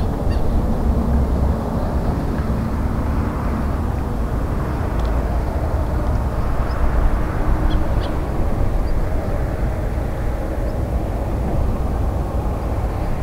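Strong wind buffeting the microphone: a steady low rumble with no let-up.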